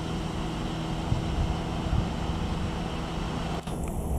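Diesel engine of a PESA SA135 railcar running steadily at idle, a low, even hum.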